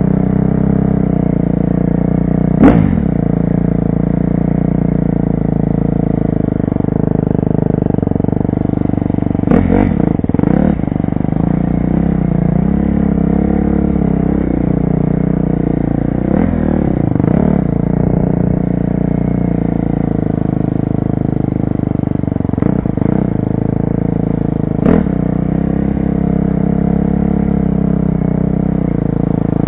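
2012 KTM 250 SX-F's single-cylinder four-stroke engine running at a fairly steady pace on the trail, heard from a helmet-mounted camera. A few brief sharp knocks break in, about four times.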